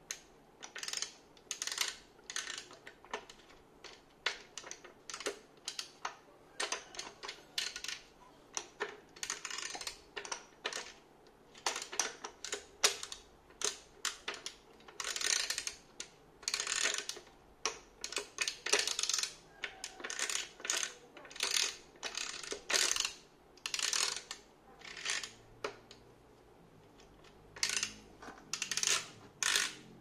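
Metal burr carrier and adjustment collar of a flat-burr coffee grinder being fitted and turned by hand: a run of short metallic clinks and scrapes, about one or two a second, with a short pause near the end.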